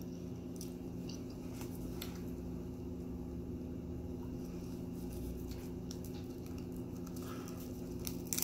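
A person biting into and chewing a soft muffin breakfast sandwich close to the microphone: faint wet mouth clicks and soft squishes, a few more near the end. A steady low hum runs underneath.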